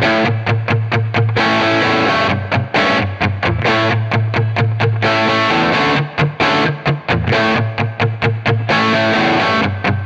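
Electric guitar, a b3guitars Phoenix, played through an IK Multimedia TONEX tone model of a Marshall SV20H amp head set to a crunch tone, so the chords are mildly distorted. Rhythm chords come mostly as short choppy stabs, with a few chords left to ring for about a second.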